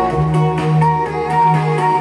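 Music with a steady beat and held melodic notes.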